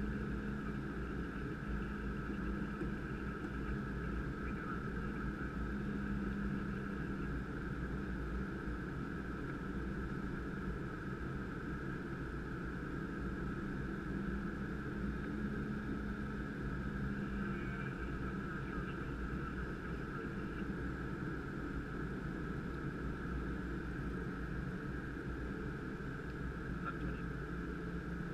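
Steady flight-deck noise of a Gulfstream G550 business jet in flight: a constant rush and hum over a low rumble, with a thin steady high whine.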